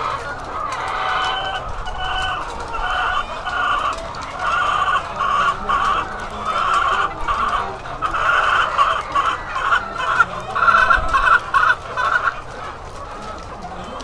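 Many caged laying hens calling together: a dense chorus of short, repeated calls that grows louder and breaks off suddenly about two seconds before the end.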